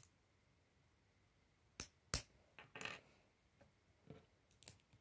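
Small plastic Lego pieces clicking as they are pressed together and set down on a wooden table: a few sharp clicks, the two loudest about two seconds in, with softer taps later.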